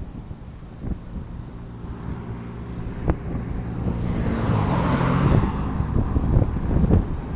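Vehicle engine running with wind rushing over the microphone; the wind swells louder about four seconds in, and a single knock sounds about three seconds in.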